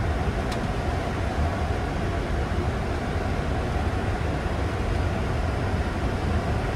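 Steady rush of airflow and engine noise inside a Boeing 747-8 Freighter's flight deck on final approach, even and unchanging, with one faint tick about half a second in.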